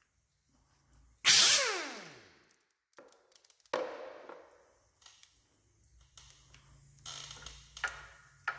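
A short burst from an air impact wrench about a second in, its whine falling as it spins down. It is followed by sharp metal clanks of tools and parts, each ringing briefly, the loudest near the middle and twice near the end.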